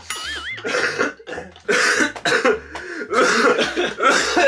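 A young man coughing and clearing his throat in a series of harsh coughs after forcing down a large mouthful of instant noodles: he is gagging on the food, which the eaters call a rejection reaction.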